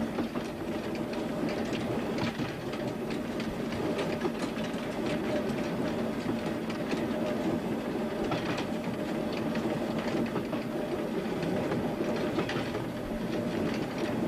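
Train running along the line, heard on board from the front: a steady drone under a constant rapid rattle and clatter of the wheels over the track.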